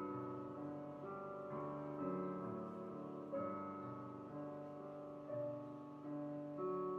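Background piano music: gentle chords struck about every one to two seconds, each note ringing and fading.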